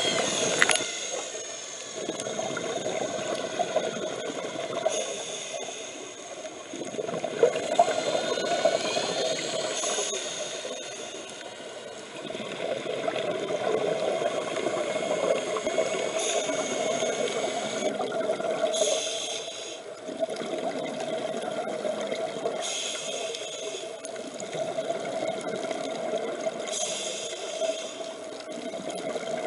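Underwater scuba diving sound: bursts of exhaled bubbles from a diver's regulator every few seconds over a steady underwater background noise.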